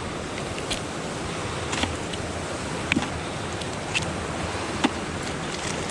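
Steady wind noise on the microphone, with a light click or tap about once a second.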